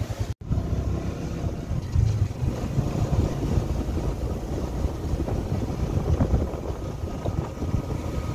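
Vehicle engine running and wind rushing over the microphone while riding along a road in traffic, with a brief dropout near the start.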